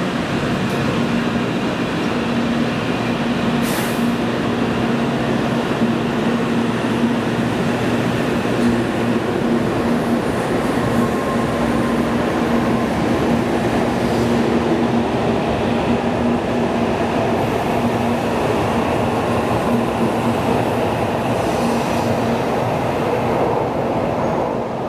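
N700-series Shinkansen train running noise: a steady, even rumble with a constant low hum.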